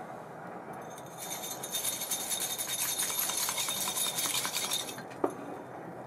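ABU Ambassadeur 2500C baitcasting reel with a Brimo spool spinning freely on its bearings: a high metallic whir with fine rapid ticking that starts about a second in and stops near the five-second mark. A single sharp click follows just after.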